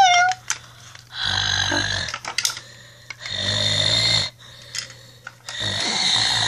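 Snoring sounds, one about every two seconds, four in all. A short, falling, squeal-like cry comes right at the start.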